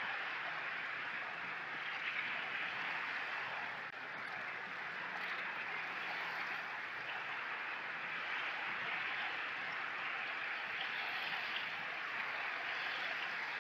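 Gentle sea waves lapping and washing on the beach: a steady hiss of moving water that swells and eases slightly.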